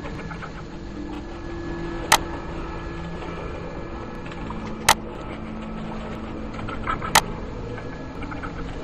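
A low, steady droning hum with faint, slowly shifting tones, broken by three sharp, loud clicks about two and a half seconds apart.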